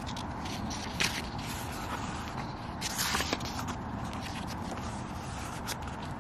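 Paper pages of a paperback book being turned, with short crackly rustles about a second in and again around three seconds, over a steady low outdoor background noise.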